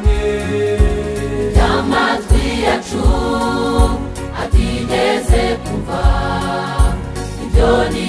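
Gospel choir music with held notes over a steady beat, a low drum hit about every three-quarters of a second.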